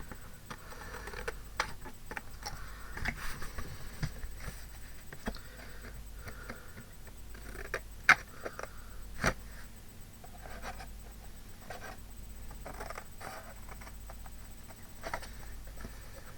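Paper being handled and pressed onto a box: soft rustling and scraping with scattered light taps and clicks, the sharpest a little after 8 seconds and again about a second later.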